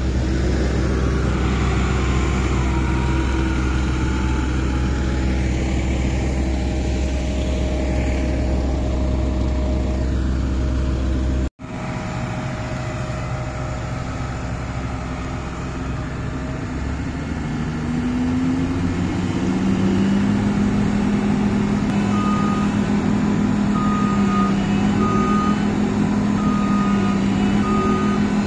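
Massey Ferguson rice combine harvester's diesel engine running steadily, cutting out suddenly just under halfway through, then rising in pitch as it revs up. Over the last few seconds a reversing alarm beeps about every one and a half seconds as the machine backs up.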